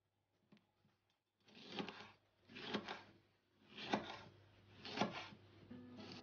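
Chef's knife chopping through tomato and striking a wooden cutting board, four cuts about a second apart.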